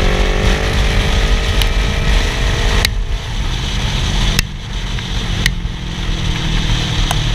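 Yamaha R3 motorcycle on the move: engine running under a steady rush of wind on the microphone, its note easing down in the first second. A few sharp clicks are heard through it.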